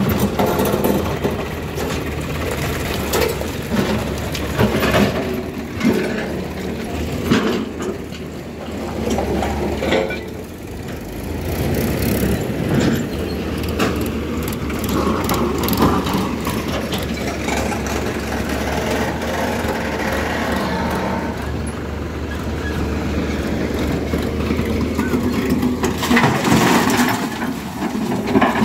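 Diesel engines of a tractor and a Hyundai crawler excavator running steadily, with scattered knocks and clatter of earth and stones dropping into a steel tractor trolley, loudest near the end.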